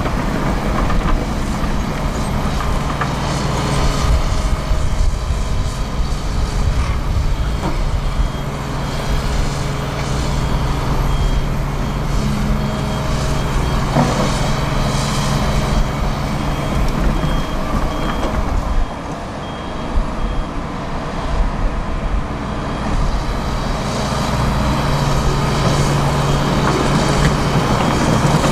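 Heavy diesel engines of a Volvo truck and a Hitachi 225 USR excavator running steadily on a building site. Through the middle a reversing alarm beeps about once a second.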